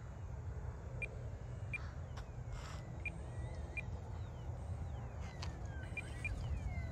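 Low rumble of wind on the microphone, with birds calling: short high chirps here and there and several falling whistled calls in the second half.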